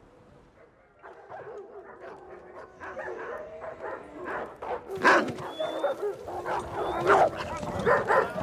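Dog barking and yelping, starting about a second in and getting louder, with a series of short sharp barks.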